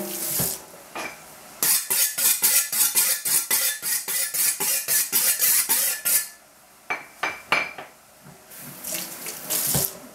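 A kitchen cleaver being sharpened: a quick run of about twenty scraping strokes of the blade, roughly four a second, then a few sharp metallic clicks with a brief ring. Near the end, water runs from the tap.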